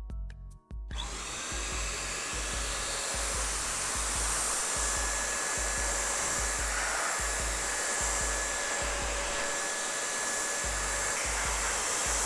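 Air blower running steadily, blasting air over a mechanical keyboard with its keycaps removed to blow out dust and debris; it starts up about a second in.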